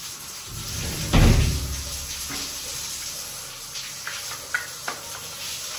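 A dull, heavy thump about a second in, then two short light clicks later on.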